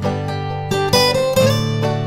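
Background music: a plucked-string instrumental with quickly picked notes over held bass notes.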